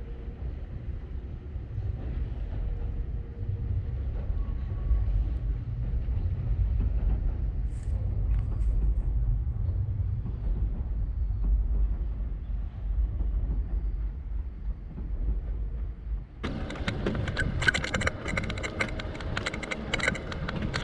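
Riding on a bicycle: a steady low rumble of wind buffeting the bike-mounted camera's microphone, then about 16 seconds in an abrupt switch to a loud, busy rattling clatter with hiss, like the bicycle and its mount shaking over a rough path surface.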